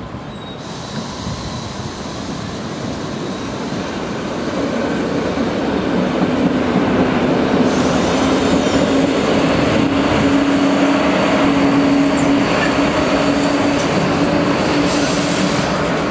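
Old BLS regional train, an Re 4/4 electric locomotive hauling blue-and-cream coaches, pulling out and passing close by. It grows louder over the first several seconds, then holds steady with a steady hum running through.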